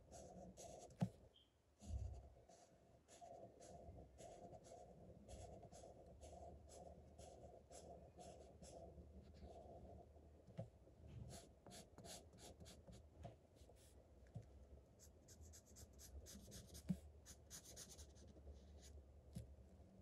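Blue felt-tip marker scratching faintly on paper in quick back-and-forth colouring strokes, over a steady low hum. A sharp tap about a second in and a low thump just after.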